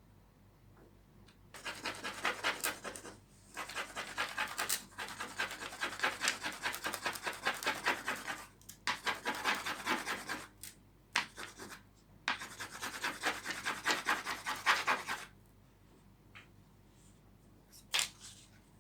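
Quick, scratchy back-and-forth rubbing strokes on a wooden tray, in bouts of a few seconds with short pauses between them. The last bout stops about five seconds before the end, followed by a few faint taps and one short scrape.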